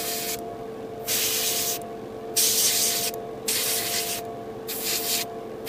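Airbrush spraying a light mist coat of thinned paint in about five short bursts of hiss, each under a second, with brief pauses between them. A steady machine hum runs underneath.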